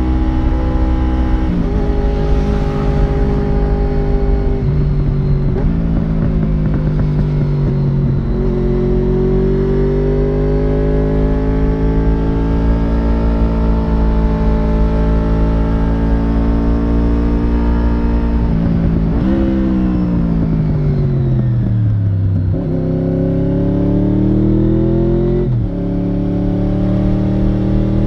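Honda VFR750F RC36's 748 cc 90-degree V4 engine heard from the rider's seat while riding. The engine pitch climbs steadily under throttle and drops sharply at gear changes. About two-thirds through it rises briefly, then falls away for a few seconds as the bike slows, picking up again with another shift near the end. Wind rumble runs underneath.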